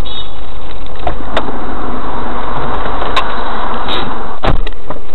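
Inside a car, heavily overloaded road and engine noise picked up by a dashcam microphone, with scattered sharp clicks and a louder knock about four and a half seconds in.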